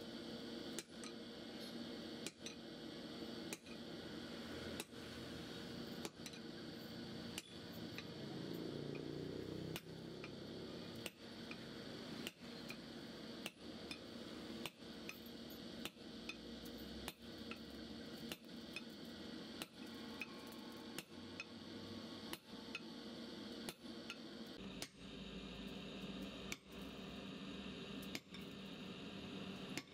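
Hammer blows on a red-hot steel rebar resting on an anvil block, evenly spaced at about one blow every second and a bit, over a steady background noise.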